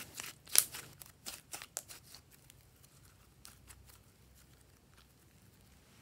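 Green slime squeezed and kneaded between hands, giving a quick run of wet clicks and pops that thin out after about two seconds. A few faint pops follow as it is stretched.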